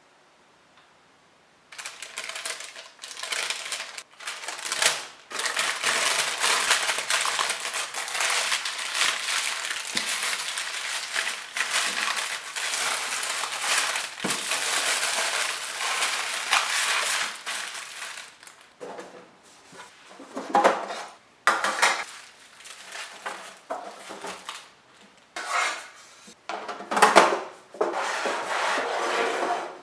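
A utensil scraping and stirring continuously in a mixing bowl for about sixteen seconds, then a series of separate knocks and clinks of utensil against bowl.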